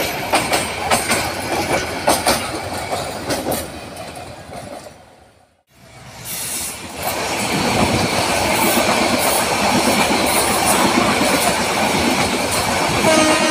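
Passenger coaches rolling past close by, wheels clattering over the rail joints. The sound fades out about five seconds in, then a second passenger train's coaches run past with steady, loud rolling noise, and a steady pitched tone comes in near the end.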